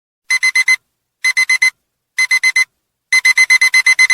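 Countdown timer's electronic alarm-clock beeping, signalling that the countdown has run out: three groups of four quick, high beeps about a second apart, then a longer run of rapid beeps near the end.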